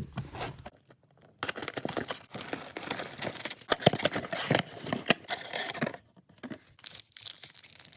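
Trading card booster box being opened by hand: its wrapping crinkles and tears in a dense run of crackles and clicks from about a second and a half in, then a few softer rustles near the end.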